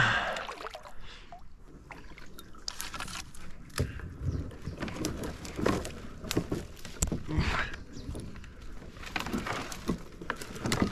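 Kayak paddle strokes dipping and splashing, with irregular knocks and scrapes from the paddle and the plastic hull among overhanging branches.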